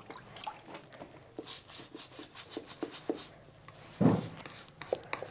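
Stiff-bristled brush scrubbing a pony's wet hoof in short, rapid strokes, with a brief dull knock about four seconds in.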